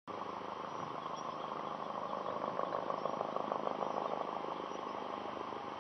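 Helicopter rotor chop: a fast, even pulsing drone that swells a little in the middle.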